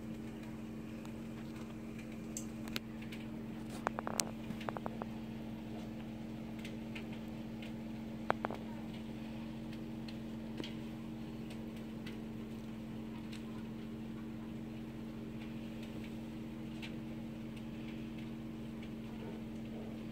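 A steady low electrical hum, with a cluster of light clicks and taps about four seconds in and another sharp click a few seconds later.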